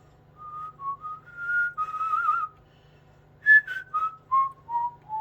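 A man whistling a short tune in two phrases: the first climbs and wavers, the second steps down note by note and ends on a held, wavering note.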